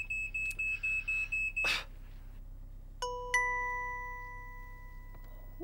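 Smoke alarm sounding its test beep, a high rapid pulsing tone while its test button is held, stopping about two seconds in. About a second later a chime is struck twice in quick succession and rings slowly away.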